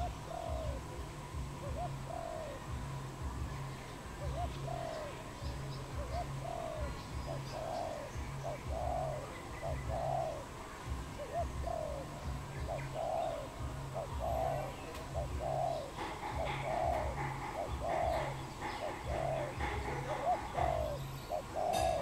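Spotted dove cooing: a long run of short, arched coos, about one a second, growing a little stronger in the later part. A low pulsing hum runs underneath.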